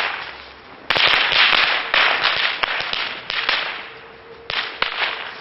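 Bottle rockets going off: a sudden hissing burst about a second in, peppered with sharp cracks, fading over a couple of seconds, then another sharp crack and hiss near the end. The fused bundle of rockets used to ignite the tub is firing only partly, and the tub has not yet caught.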